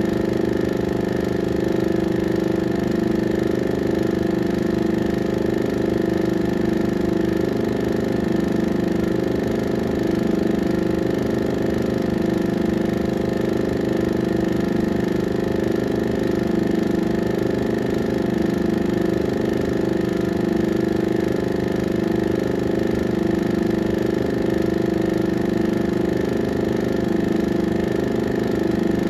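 16mm film projector running: a steady mechanical hum with a fast, even flutter underneath, unchanging throughout.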